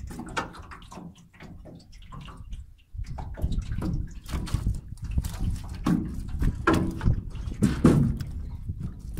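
Water sloshing and dripping around a metal boat, with scattered knocks and clatters on the hull, busier from about three seconds in, over a low rumble.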